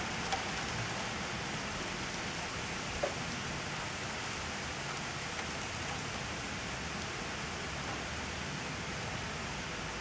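Steady rain falling on a paved surface, with a couple of small ticks from drops about a third of a second and three seconds in.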